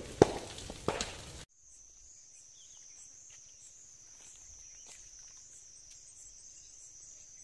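Burning brush crackling and popping, with one sharp loud pop near the start. About a second and a half in, it cuts to a steady high-pitched insect drone that pulses about twice a second.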